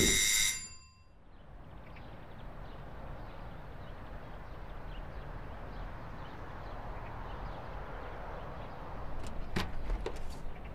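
A brief pitched tone at the start, then steady outdoor street ambience; near the end a few sharp clicks as a front door's handle and latch are worked and the door opens.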